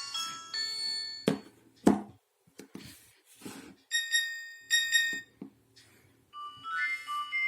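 Nokia mobile phone ringtones playing from the phone's loudspeaker: one melody fades out about a second in, then come two sharp loud clicks, a short pattern of beeping tones around the middle, and a new multi-note ringtone melody starting near the end.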